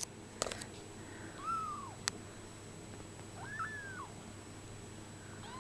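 Bengal kittens about 24 days old mewing: two thin, high cries that rise and then fall in pitch, about a second and a half in and again past the middle, with another beginning at the very end. A few sharp clicks come near the start and once around two seconds in.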